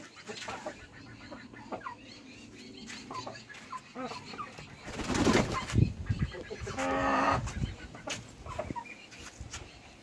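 Parrot-beak aseel roosters clucking with short calls, with a burst of wing flapping and scuffling about five seconds in as they square off, and a longer drawn-out call about seven seconds in.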